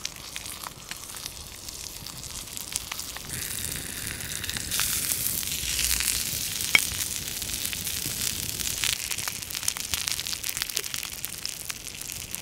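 Wagyu T-bone steak searing on a hot salt block over a wood fire: a steady sizzle thick with crackles and pops of spitting fat, building to its loudest around the middle, with one sharp pop about halfway through.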